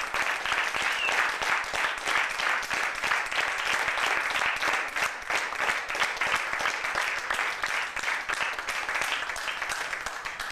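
Audience applauding: many hands clapping densely, slowly thinning toward the end.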